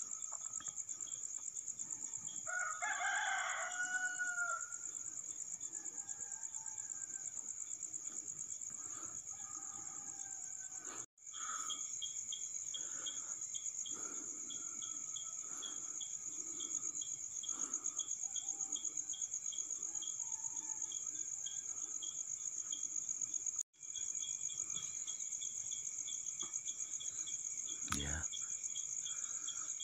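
Night insects, crickets, chirring in a steady high trill, with a second insect call pulsing rapidly beneath it. A rooster crows once, about three seconds in, and there is a single sharp knock near the end.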